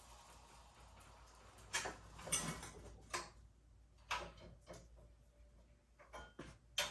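A series of irregular sharp clicks and knocks, about seven in all, starting after a second and a half of faint room tone.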